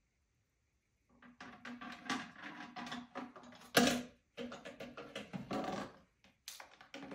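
Plastic dishes knocking and scraping against a bathroom sink and counter as an African grey parrot pushes and drags them, starting about a second in, with one louder knock near the middle.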